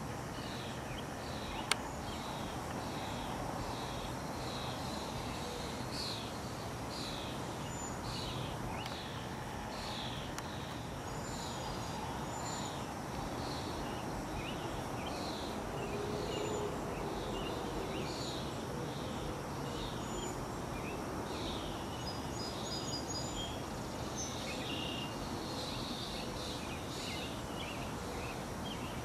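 Steady outdoor background noise with a regular series of short, high, falling chirps, a little more than one a second, from a bird or insect. A single sharp click about two seconds in.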